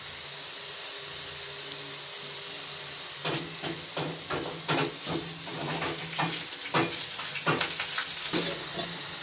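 A steady low hum with a light hiss, then, from about three seconds in, irregular scrapes and clicks of a metal spoon against a steel pot, several a second, as boiled rice is scooped out.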